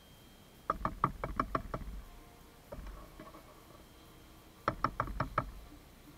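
Thin wooden stick stirring and tapping in a plastic paint palette well while mixing paint: two quick runs of sharp clicks, one about a second in and another later on, each about six clicks a second.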